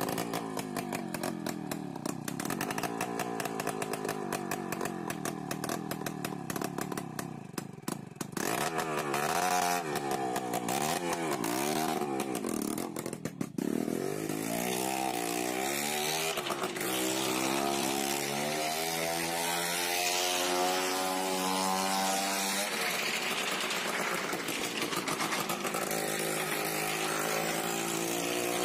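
Two-stroke motorcycle engine ticking over, then blipped up and down about eight seconds in. It then pulls away, its pitch climbing gear after gear as it rides up the wooden wall of a well of death, and settles into a steady high-revving run near the end.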